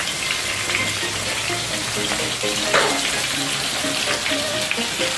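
Whole red snappers shallow-frying in hot oil in a cast-iron skillet: a steady sizzle with a louder crackle about halfway through.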